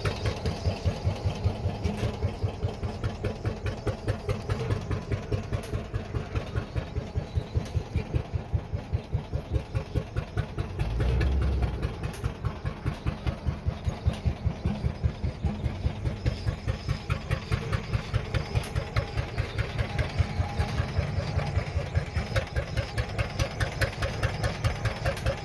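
Arrow C-66 single-cylinder engine driving a Lufkin 114 oil-well pumping unit, running steadily with an even exhaust beat of about three pulses a second. A brief low rumble comes in about eleven seconds in.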